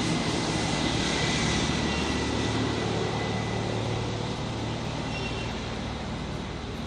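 Steady engine rumble under a broad hiss, slowly fading.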